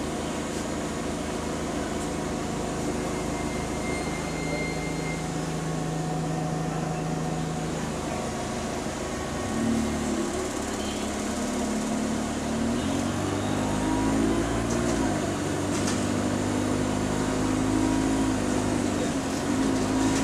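Bus diesel engine heard from inside the cabin: a steady low running note for the first half, then from about ten seconds in the engine note rises and falls several times as the bus pulls away and accelerates.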